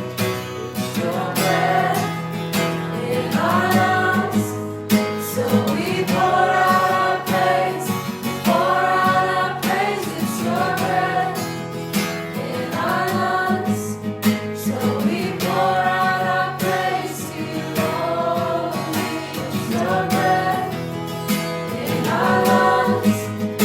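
Worship song: voices singing together over guitar accompaniment, in phrases of a couple of seconds each.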